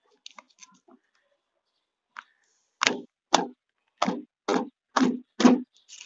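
A few faint clicks, then six sharp knocks on the Maruti Celerio's sheet-metal tailgate, about two a second, starting about three seconds in, as the broken tailgate handle is worked loose and removed.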